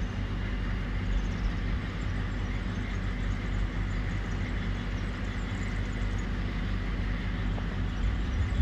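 Freight train hauled by two E652 electric locomotives approaching in the distance: a steady low rumble without breaks.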